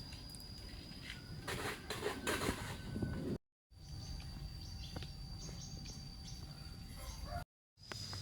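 Village nature ambience: a steady high-pitched insect trill with some bird chirps and short rustling noises. The sound cuts out twice for a moment where clips are joined.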